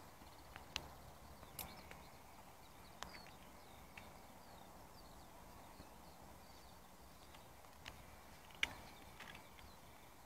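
Quiet outdoor background with faint bird chirps and a scattering of short sharp clicks and taps from handling, the loudest near the end.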